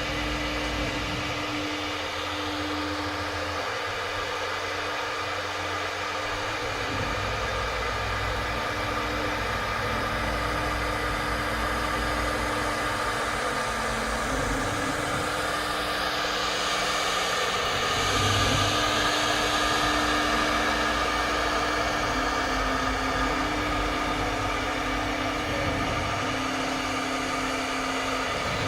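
Four-axis CNC woodworking engraving router running, a steady machine hiss with low hum tones that change or drop out every few seconds as the axes move.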